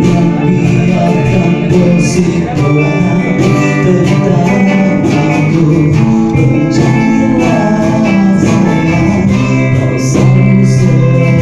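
Live acoustic band: an acoustic guitar played with steady percussion hits keeping the beat, and a voice singing along.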